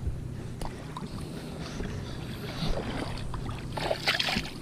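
Shallow seawater sloshing and splashing as someone moves through it, with a cluster of louder splashes near the end.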